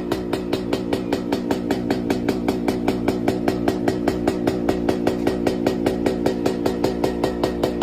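Yamaha RX-King 135 cc two-stroke motorcycle engine idling steadily with an even, pulsing burble of about five or six beats a second: the 'ngorok' (snoring) idle typical of a two-stroke.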